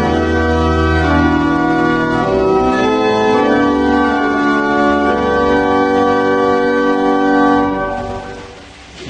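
Organ playing slow, held chords that fade out near the end.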